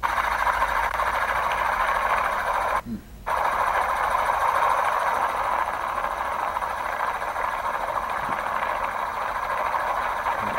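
Steady helicopter cabin noise from aerial news footage, a thin rushing drone with little bass, cutting out for about half a second roughly three seconds in.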